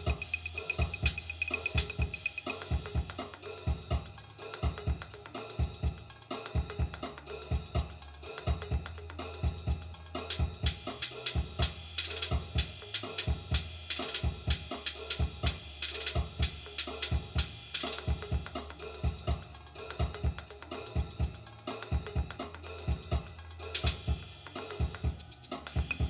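Music: a drum kit playing a steady rhythmic beat of bass drum, snare and cymbals.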